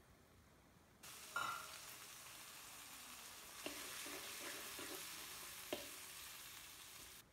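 Chopped tomatoes and onions sizzling in hot oil in a metal pan while a steel spoon stirs them. The sizzle starts suddenly about a second in and cuts off just before the end, and the spoon clinks against the pan once near the start and twice more later.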